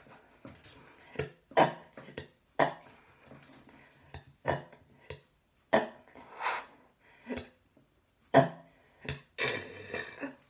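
A woman burping in a quick series of short, sharp burps, about a dozen in ten seconds, some louder than others, with a longer one near the end.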